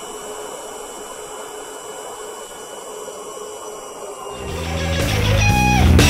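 Motor of an 18 V cordless ash vacuum running steadily, with a whirring hiss and a few steady tones. About four seconds in, rock music with electric guitar fades in and grows louder over it.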